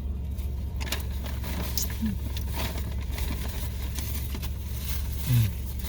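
Steady low hum of an idling car engine heard from inside the cabin, under scattered short rustles and clicks of people eating from food wrappers.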